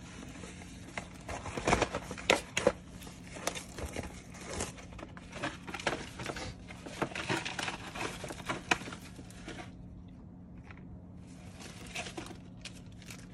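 Plastic packaging rustling and crinkling, with many small clicks. It quiets about ten seconds in, then rustles briefly again near the end.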